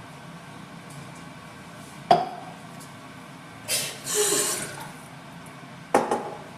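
A young woman sneezing: a sharp, sudden sneeze about two seconds in and another near the end, with a longer breathy rush of air between them, following an itchy nose.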